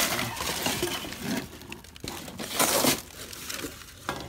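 Plastic bags and wrappers in a dumpster rustling and crinkling as the trash is rummaged through, in irregular bursts, loudest near the start and again about two and a half seconds in.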